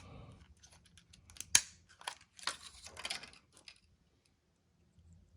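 Sharp clicks and short plastic rustles of small hand handling: a new CR2032 coin-cell battery being taken out of its packaging, with one loud snap about a second and a half in and the sounds stopping near the end.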